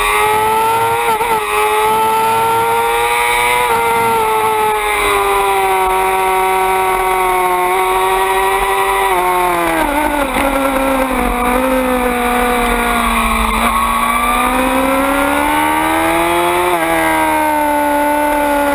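Suzuki GSX-R600 race bike's inline-four engine at high revs on track, with wind noise over the microphone. About ten seconds in the note falls sharply as the bike slows and downshifts, then climbs steadily again under acceleration.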